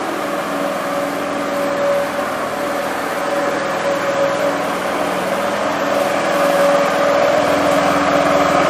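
Small petrol engine on an artificial-grass brush machine running steadily at a constant speed while the machine brushes infill into the turf. It grows a little louder over the last few seconds as the machine draws nearer.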